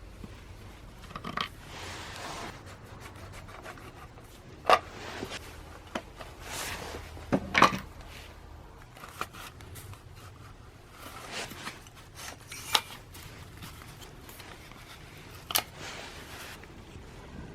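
Scattered handling noises of a brush cutter being taken apart: short scrapes and rubs with a few sharp clacks of tools and parts, the loudest a little under 5 s in and around 7.5 s in.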